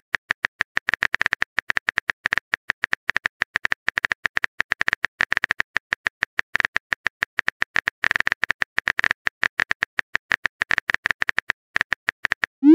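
Rapid keyboard typing clicks, a typing sound effect, many taps a second with a few short pauses, signalling that a chat message is being composed.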